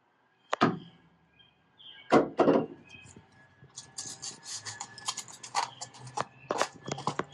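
Rigid foam insulation board being fitted into a frame of wooden furring strips: a few sharp knocks as it is set down against the wood, then a quick run of small clicks and rubbing as it is pressed into the cavity.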